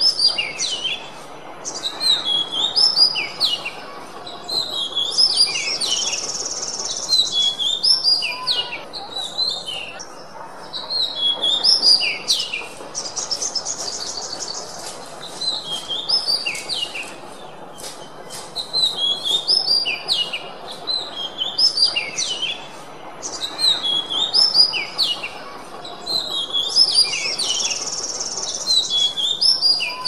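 Oriental magpie-robin (kacer) singing continuously in repeated phrases of clear, varied whistled notes, with a few high buzzy trills among them, over a faint steady background hiss.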